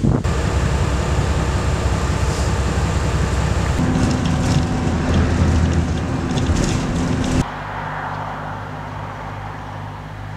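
Engine and road noise inside a moving vehicle: a steady low rumble with an engine drone that strengthens about four seconds in. About seven seconds in it cuts abruptly to quieter roadside ambience with a steady low hum of traffic.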